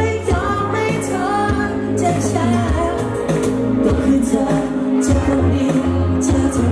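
Live pop band playing: a singer over electric guitar, bass guitar, drums and keyboards, with steady drum and cymbal strikes. The sung line is clearest in the first half.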